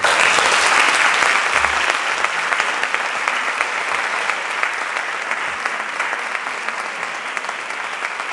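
Audience applauding. The applause breaks out suddenly, is loudest in the first couple of seconds, then slowly eases off.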